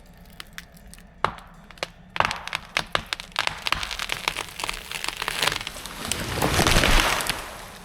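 A felled tree's wood cracking and snapping as it gives way under the pull, the snaps coming thicker and faster. Then the tree crashes down through the branches in a rising rush that peaks near the end and fades.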